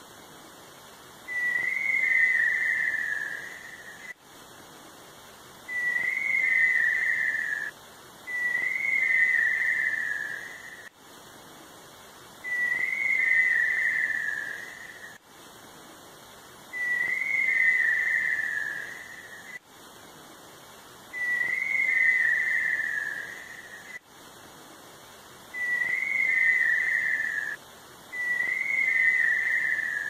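A tinamou's call: long, wavering whistles, each about two seconds long and falling a little in pitch, given eight times, every three to four seconds.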